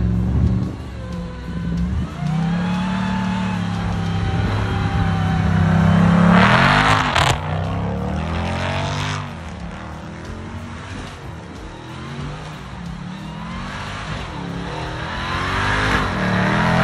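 Ram TRX's supercharged 6.2-litre V8 running and revving, its note rising and falling, with a higher whine following the revs. About seven seconds in there is a loud rush of noise; the engine then settles lower and climbs again near the end.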